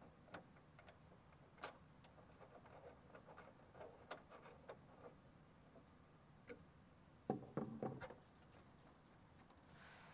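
Faint scattered clicks and ticks of a screwdriver driving a screw through a nylon anti-tip strap into the back of a flat-screen TV. There is a brief, louder clatter of knocks from handling the strap and its hardware about seven seconds in.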